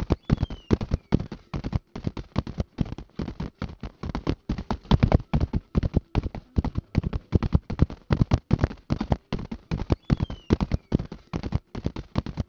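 Racehorses galloping: a continuous run of rapid hoofbeats on turf or dirt, several strikes a second falling in quick uneven clusters.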